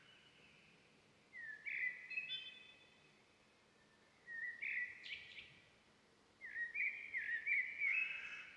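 Bird calls in three bursts: a short phrase about a second and a half in, another around four and a half seconds, and a longer run of rising, repeated notes near the end, over a faint steady forest background.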